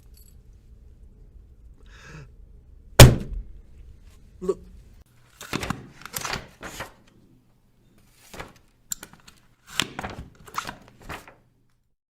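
A run of punch sound effects, fist-on-body hits. One heavy hit about three seconds in is the loudest. It is followed by several shorter, lighter hits, some close together in quick twos and threes, with silence between them.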